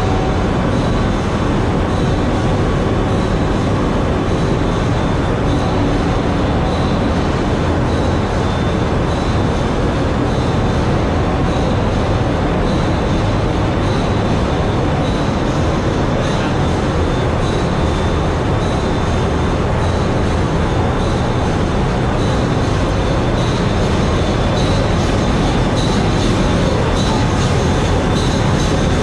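Loud, steady engine-room machinery noise from a container ship's 62,000-horsepower slow-speed two-stroke diesel main engine running, together with the surrounding auxiliary machinery. It is a dense, even din with no breaks and no change in level.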